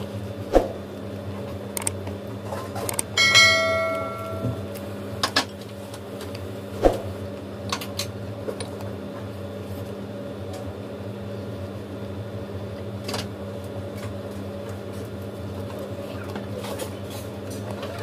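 Bites and chewing of crispy fried chicken, heard as scattered sharp crunches and mouth clicks over a steady low hum. About three seconds in, a short bell-like ring sounds and fades within a second.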